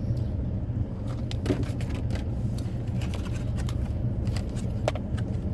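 Steady low hum inside a car's cabin, with scattered small clicks and scrapes from handling takeout food and containers while eating.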